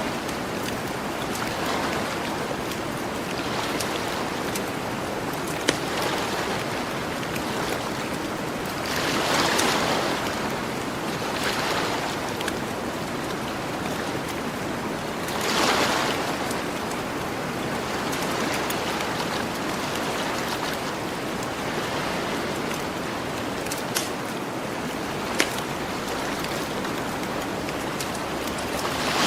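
Gentle ocean surf washing onto a beach as a steady hiss, with two waves swelling up, about a third of the way in and just past halfway. A campfire crackles underneath with a few sharp pops.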